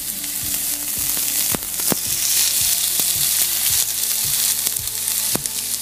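Mackerel fillets sizzling on a hot, oil-sprayed ridged grill pan over high heat: a steady hiss with scattered crackling pops. The sizzle swells about a second and a half in as a second fillet is laid on the pan.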